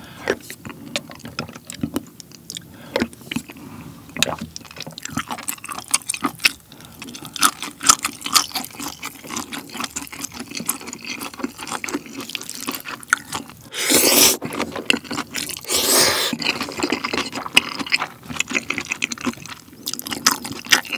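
Close-miked eating sounds of black-bean-sauce noodles (jjajangmyeon): wet chewing, lip smacks and clicks, with two longer, louder slurps about two-thirds of the way through.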